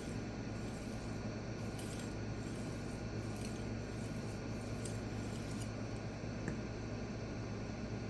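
Kitchen knife edge scraping in light, irregular strokes across a small resin-bonded diamond pocket stone whose surface is loaded with steel swarf and barely cutting, over a steady low hum.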